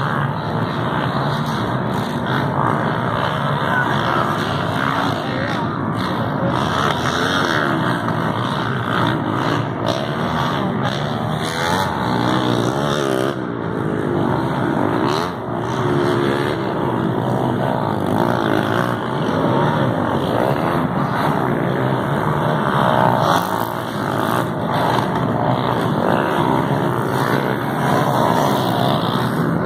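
Several motocross dirt bikes racing round a dirt track, their engines revving up and down with many overlapping, rising and falling notes.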